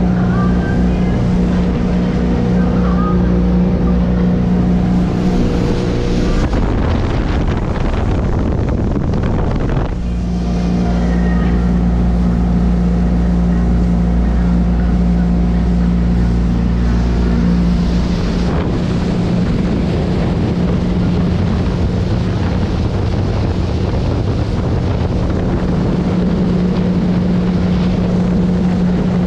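Sea Ray ski boat's engine running steadily at cruising speed under way, with wind rushing over the microphone. For a few seconds about a quarter of the way in, the engine note sinks under wind and water noise, then comes back steady.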